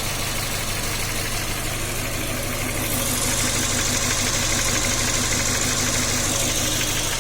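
Volkswagen Jetta's 1.6 BSE four-cylinder petrol engine idling roughly, misfiring on one cylinder: cylinder 1 has no spark because its spark plug has lost its centre electrode. A steady high hiss joins about three seconds in.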